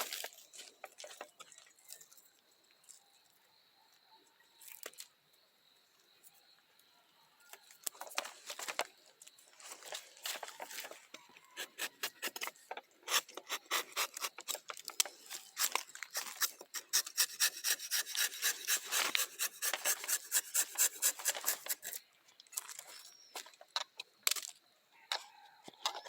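A hand tool scraping or rasping wood in repeated strokes, irregular and sparse at first, then quick and regular at about four strokes a second for several seconds before stopping near the end.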